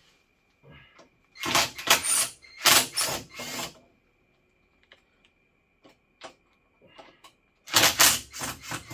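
Rustling and clattering of hands working on wires and a switch panel: two loud clusters of handling noise, one from about a second and a half to nearly four seconds in and another near the end, with a few sharp clicks between.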